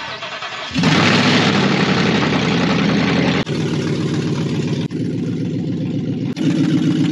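The Whipple-supercharged 5.0 Coyote V8 of a 2021 Ford F-150 running loudly and steadily through a muffler-delete exhaust, with three brief breaks. The engine is damaged, with bad compression on some cylinders.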